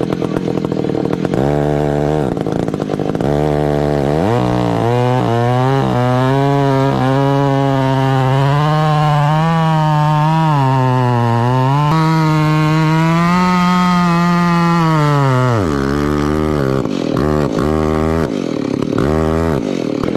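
Two-stroke chainsaw with a 42-inch bar: a few quick throttle blips, then about eleven seconds at full throttle cutting, the engine pitch sagging and picking back up as the chain loads in the wood, then more short blips before it drops off at the end.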